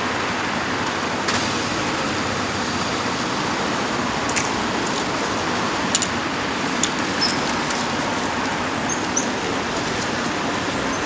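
Steady traffic noise of a line of cars driving past through a roundabout, with a few faint short clicks and chirps.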